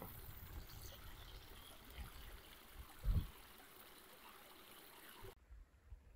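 A small stream trickling and splashing over rocks, with one low gust of wind on the microphone about three seconds in. Near the end the water sound cuts off abruptly, leaving only low wind rumble.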